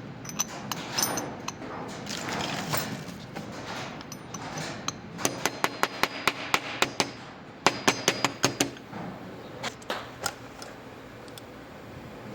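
Hammer blows on metal: two quick runs of sharp, ringing strikes at about five a second, the second run shorter, with a few lighter knocks near the start.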